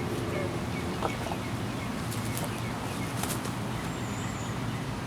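Steady low hum of a distant engine, with a few light clicks and knocks of handled gear.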